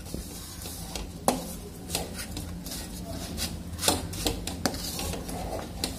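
A spatula stirring powdered milk in ghee in a pan on a low flame, scraping and knocking against the pan with a few scattered sharp clicks while breaking up small lumps, over a low steady hum.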